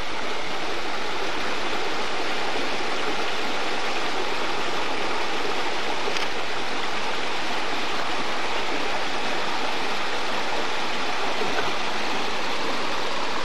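Creek water babbling over rocks in a shallow riffle: a steady, even rushing.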